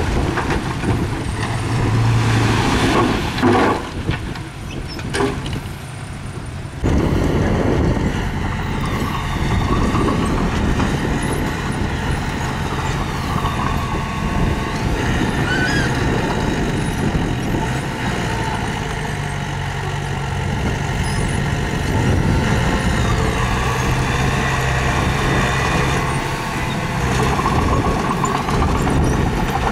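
Diesel engine of construction machinery running steadily at work, with a broad rumble. The sound changes abruptly about seven seconds in.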